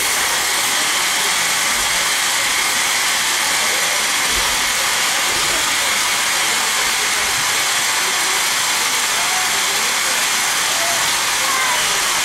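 A loud, steady hiss with no rhythm or pauses.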